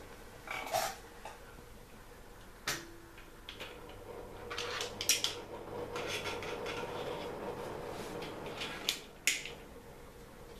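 Dry kibble rattling and clicking against the plastic of a Catit Senses food maze as a cat works food out of it, with a few sharp clicks and a busier stretch of rattling in the middle.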